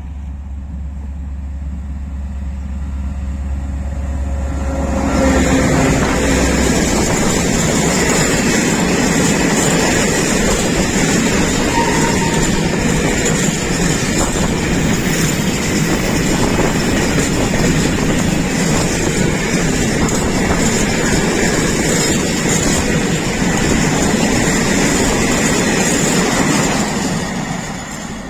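Diesel freight train approaching, its engine a steady low drone, then passing close by about five seconds in. Then comes a loud steady rumble of the bogie hopper wagons' wheels running on the rails, which drops away near the end as the last wagon goes by.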